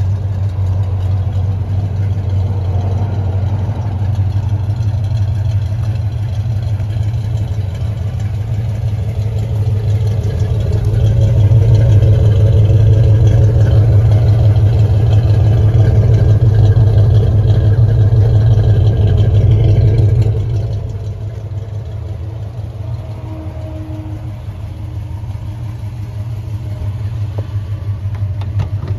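The 1970 Chevrolet C10's 396 cubic-inch big-block V8, fitted with headers and dual exhaust, idling steadily. The exhaust note gets louder for about ten seconds in the middle, then drops back about two-thirds of the way through.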